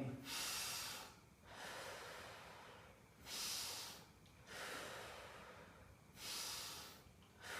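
A man taking deep breaths, three slow cycles, each with a louder rush of air and a softer, longer stretch of breathing between. These are the preparatory deep breaths of the effective-cough technique.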